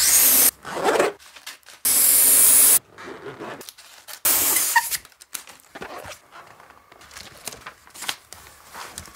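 Helium hissing from a gas cylinder's valve into a rubber balloon in a few loud bursts during the first half. Lighter paper rustling and scissors snipping through newspaper follow.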